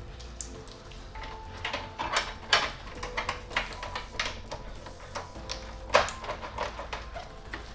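Irregular clicks, clacks and knocks of PC hardware being handled and fitted, over quiet background music with steady held notes. The loudest knocks fall about two and a half seconds in and again about six seconds in.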